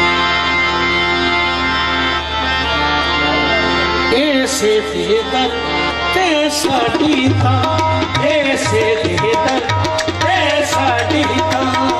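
Qawwali-style devotional music: a harmonium holds a steady chord, then from about four seconds in a singer's wavering, ornamented melody comes in over tabla strokes.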